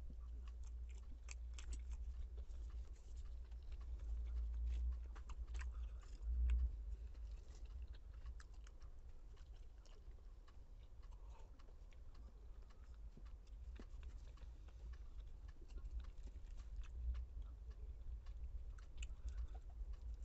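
Close-up chewing and mouth sounds of someone eating roti and Maggi instant noodles, with many small scattered clicks. A low thump comes about six and a half seconds in.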